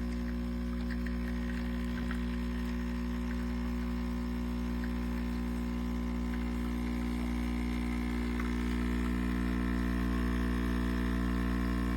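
Geek Chef 20-bar espresso machine's pump running, a steady buzzing hum with a few faint ticks.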